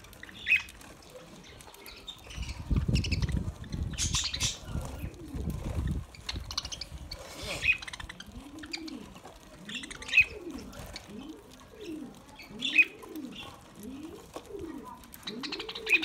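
Budgerigars feeding in a flock, giving short sharp chirps every few seconds, with a burst of wing flapping about three seconds in. In the second half a dove coos in a low, even, repeated rhythm.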